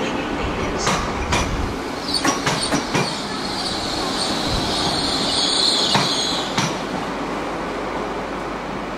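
Train wheels clacking over rail joints and points, with a high-pitched wheel squeal coming in about two seconds in and lasting roughly four seconds, then a steady running noise.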